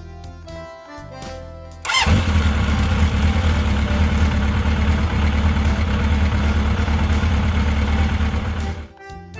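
Motorcycle engine sound effect: it starts up suddenly about two seconds in with a quick rising rev, then runs steadily for about seven seconds and cuts off. Light background music plays before it.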